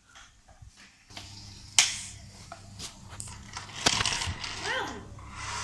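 Hard plastic toy cars and a toy car-carrier trailer clacking and rattling as they are handled on a tiled floor, with a sharp clack about two seconds in and a run of clatter near four seconds.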